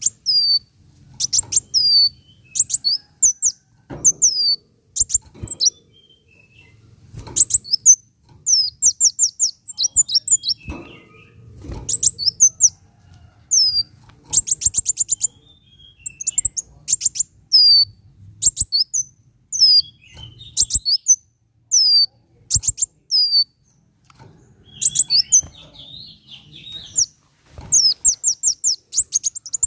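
Kolibri wulung sunbird singing: phrase after phrase of rapid, very high, thin chirps and quick downward-slurred whistles, each burst lasting about a second with short pauses between.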